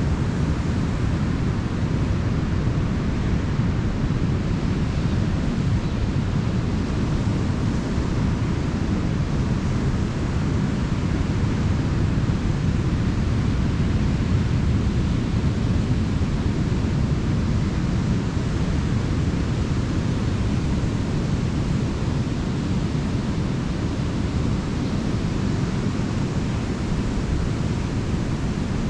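Ocean surf breaking on a beach: a steady, unbroken rush of water heaviest in the low rumble.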